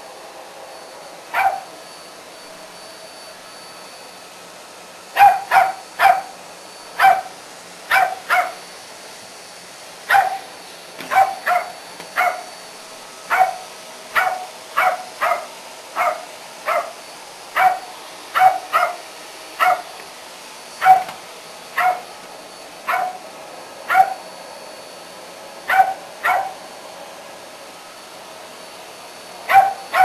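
West Highland white terrier barking at a vacuum cleaner: about thirty short, sharp barks, singly and in quick runs of two or three, with pauses of a few seconds near the start and near the end.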